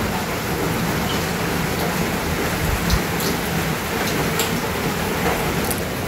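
Steady heavy rain on a corrugated sheet-metal house, with a few faint clicks.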